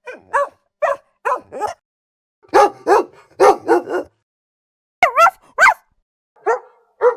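AI-generated dog barking sound effects played back as short clips: groups of quick barks separated by silent pauses, with two longer barks that swoop up and down in pitch about five seconds in and a fast run of barks near the end.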